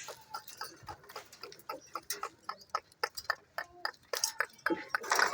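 Parrot making rapid, irregular clicking sounds, with a few short chirps mixed in.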